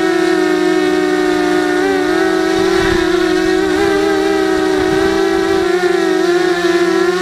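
FPV mini quadcopter's brushless motors and propellers giving a steady high whine, its pitch wavering slightly as the throttle shifts.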